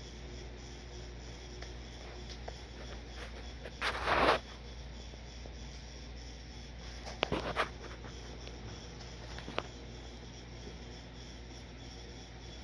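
Low room tone with a short rubbing scrape about four seconds in, then a few brief clicks and rubs around seven seconds in and one more click a couple of seconds later. This is handling noise from the phone camera being moved around the rifle.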